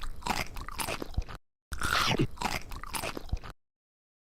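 Crunchy chewing, two stretches of crunching with a short break between, each cutting off abruptly.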